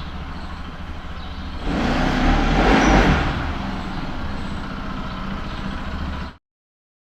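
Steady low motor-vehicle engine hum, swelling into a louder rush about two seconds in and easing off again, then cutting off abruptly near the end.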